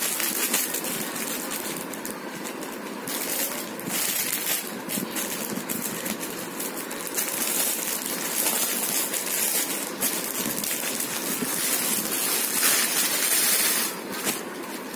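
Clear plastic packaging crinkling and rustling in bursts as plastic-wrapped cotton sarees are handled, loudest near the end, over a steady background noise.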